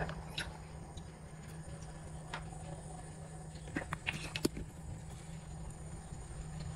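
A few faint clicks and clinks of a metal spoon and a plastic-capped bottle as fish sauce is poured into the spoon and tipped into a frying pan, over a low steady hum.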